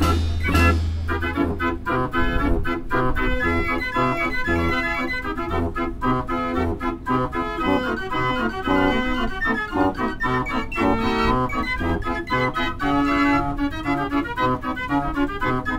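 Ch. Marenghi fair organ playing a tune: pipe-organ melody and chords over a steady bass, with drum and cymbal beats from the organ's built-in percussion.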